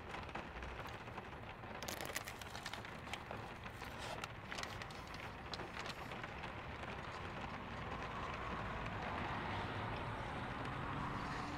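Rain falling on and around a parked truck, heard from inside the cab as an even hiss, with a cluster of sharp crackly ticks about two to five seconds in. In the second half the hiss swells into a steadier wash, like a vehicle's tyres on wet pavement.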